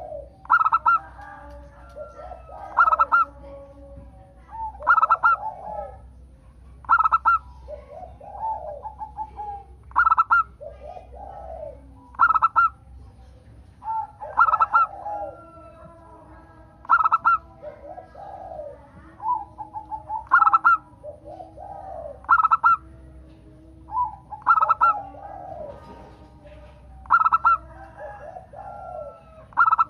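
Zebra dove (perkutut) song: the bird repeats its rolling cooing phrase, each ending in a sharp high note, about every two seconds.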